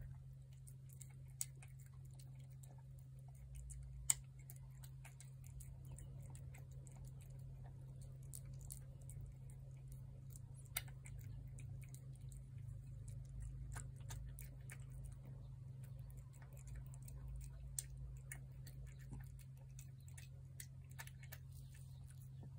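Cats eating wet food off paper plates, with faint irregular clicks of chewing and licking and a few sharper clicks, over a steady low hum.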